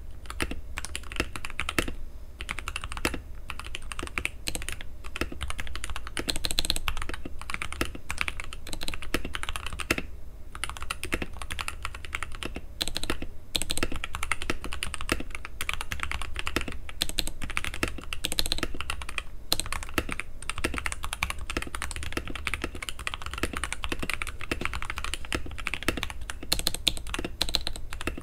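Fast continuous typing on a TM680 (PressPlay Orbiter) custom mechanical keyboard with Aflion Iceberg switches and keycaps on a stock plate, dampened with silicone, tape mod and plate foam. There are a few brief pauses between bursts of keystrokes.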